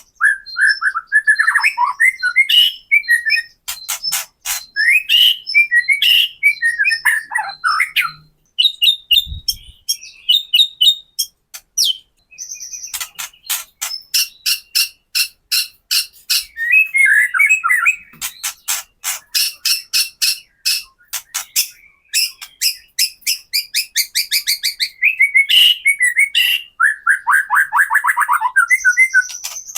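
White-rumped shama (murai batu) singing loudly, with runs of rapid dry clicking rattles (the 'kretekan' call) between short whistled phrases.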